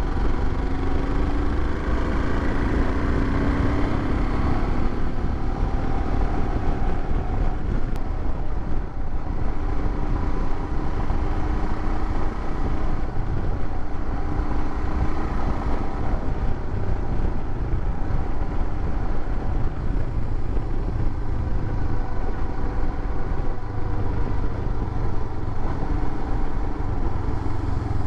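Royal Enfield Himalayan's 411 cc single-cylinder engine running at a steady cruise, its faint note drifting a little in pitch, under a heavy low rumble of wind on the microphone.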